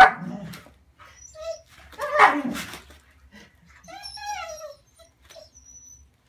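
Border collie giving two sharp, loud barks about two seconds apart, then a whine that falls in pitch about four seconds in. Bubble wrap crinkles and clicks under its mouth and paws in between.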